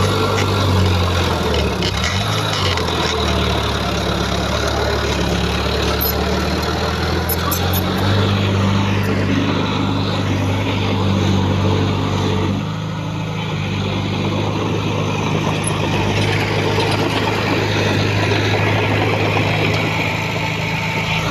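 Diesel engine of heavy earthmoving equipment running steadily, its pitch shifting a few times, with a brief drop in level about twelve seconds in.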